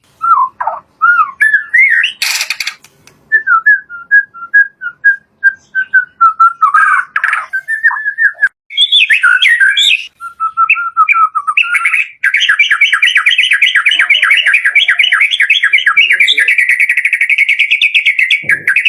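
White-rumped shama (murai batu) singing: a string of varied whistled phrases with a sharp rasping note about two seconds in, then from about two-thirds of the way through a long, fast trill of rapidly repeated notes.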